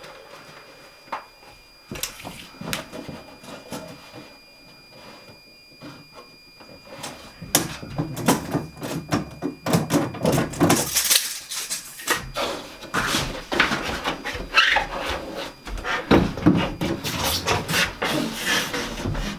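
Wooden wall boards being handled: scattered knocks and clicks, then from about a third of the way in, a run of irregular scraping and rubbing of wood on wood.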